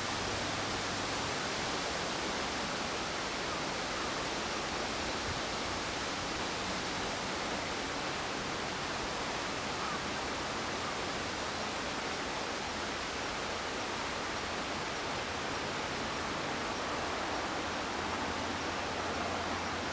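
A steady, even hiss throughout, with no bird calls standing out.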